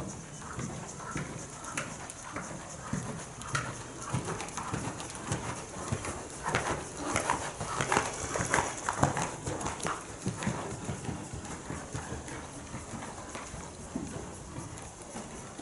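A ridden horse's hoofbeats thudding rhythmically on the soft sand footing of a covered arena. They grow louder as the horse passes close by about halfway through, then fade as it moves away.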